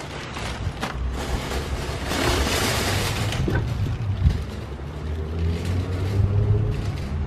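Plastic shopping bags rustling as groceries are loaded into a car's hatchback trunk, with a single knock a little past four seconds in, over a steady low rumble.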